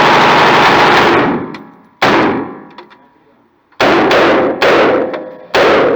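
M4 rifle with a muzzle brake fired in single shots: four sharp, loud reports, one about two seconds in and three in quicker succession near the end, each ringing out in a long echo. The echo of an earlier shot is still dying away at the start.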